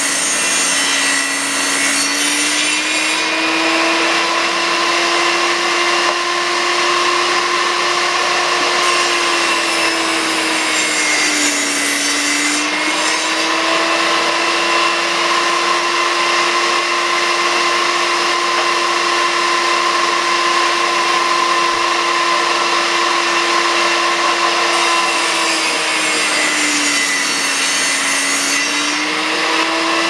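Portable table saw running steadily, its motor note sagging three times as cedar boards are fed through to trim off their edges, with a sharper hiss of the cut at those moments.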